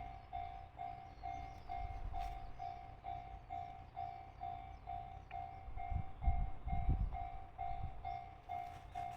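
Japanese level-crossing warning bell ringing in an even electronic clang, a little over two strikes a second, signalling an approaching train. A low rumble underneath swells about six seconds in.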